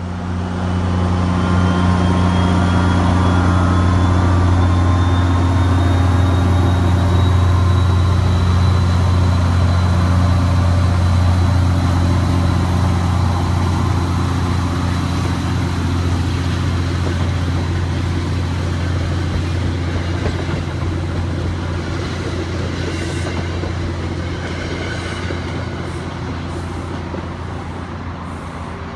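Diesel locomotive of a Metro-North Port Jervis Line commuter train running past at close range: a steady engine drone with a whine rising in pitch over the first several seconds, then the coaches rolling by and the sound slowly fading as the train draws away. A few clicks come near the end.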